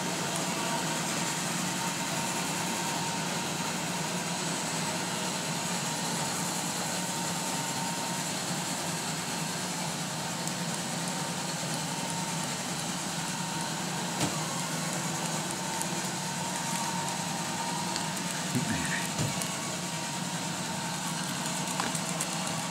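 Roomba robot vacuum running steadily: a constant motor hum and whirring hiss, with a couple of faint knocks in the second half.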